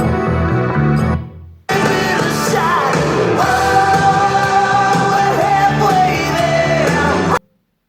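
Music: one track fades out about a second in, then a rock-pop track with a singing voice comes in and cuts off suddenly near the end.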